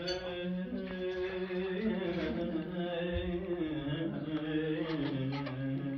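Music: a melody of long held notes, sung or played, that slowly shift in pitch.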